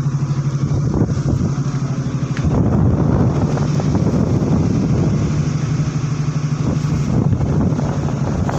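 Steady hum of the tugboat's machinery on deck, with wind buffeting the microphone; it grows a little louder about two and a half seconds in.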